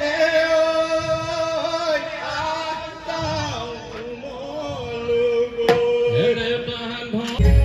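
Assamese Bihu folk song: a man sings long, wavering held notes into a microphone. Near the end, dhol drums come in suddenly and loudly.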